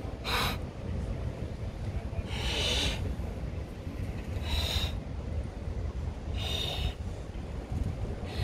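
A person blowing up a large latex balloon by mouth: four quick, noisy intakes of breath about two seconds apart, between long blows into the balloon, over a steady low rumble.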